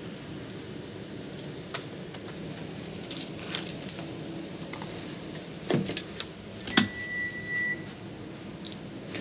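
Metal dog tags and leash hardware jingling and clinking as a puppy moves, in several irregular bursts, busiest about three to four seconds in. A sharp clink near the seven-second mark leaves a thin ringing tone.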